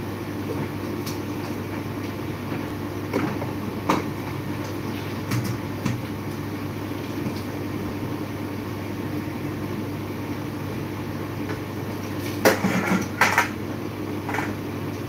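Pots, pans and dishes being handled at a dish drainer rack: scattered clinks and knocks of metal kitchenware, with a louder cluster of clatters near the end, over a steady low hum.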